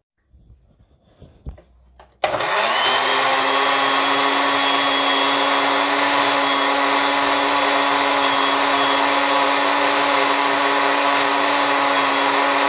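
Electric countertop blender switched on about two seconds in: the motor spins up quickly and then runs at a steady high speed, puréeing cooked mushrooms with milk and cream into soup. A faint click comes just before it starts.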